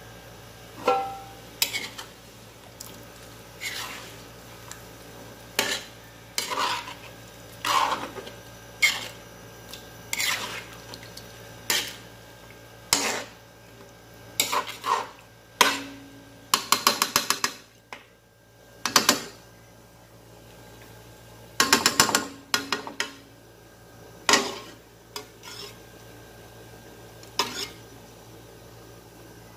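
Metal spatula scraping and knocking against a metal wok while stirring simmering chicken curry, in irregular clanks and scrapes with a quick rattling run about two-thirds through. A steady low hum sits underneath.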